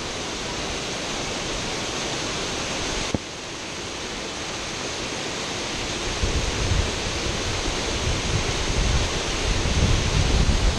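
Waterfall cascading down a rock cliff into a shallow pool, a steady rush of falling water. From about halfway through, low wind buffeting on the microphone joins it.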